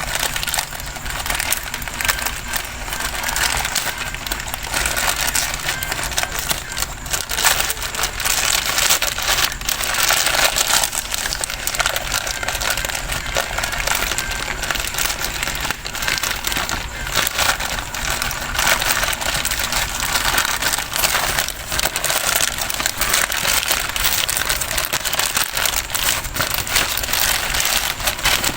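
Parcel packaging being torn open and crinkled by hand, with no scissors: a continuous run of crinkling and many small crackles.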